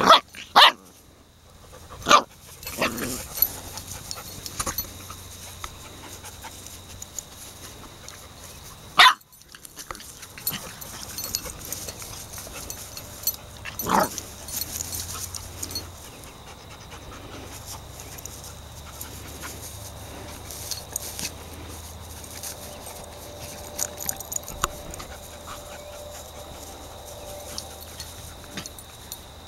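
Labrador dogs at play giving short, sharp play barks. There are three barks in the first couple of seconds, one about nine seconds in and one about fourteen seconds in, with only a low background between them.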